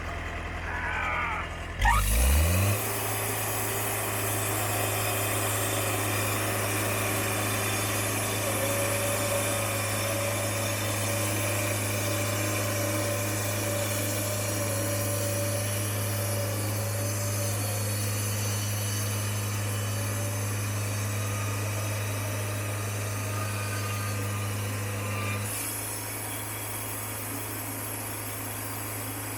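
Portable sawmill's engine revving up about two seconds in, then running steadily at high speed while sawing lumber, and dropping back to a lower, quieter running note near the end.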